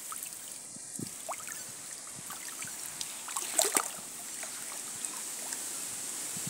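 Water trickling and dripping off a wet fine-mesh shrimp cast net held over shallow river water, with a few short splashes a little past the middle.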